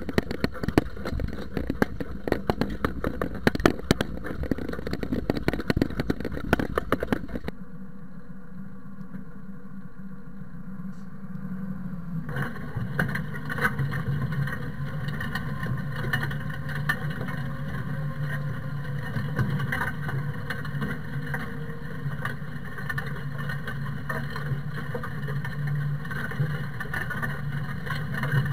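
Zetor tractor pulling a spring-tine cultivator through soil, with the tractor's engine running steadily under the cultivator frame's rattle and the tines scraping the ground. For the first seven seconds there is dense, loud clattering and knocking. After that the sound cuts to a quieter, steady engine drone.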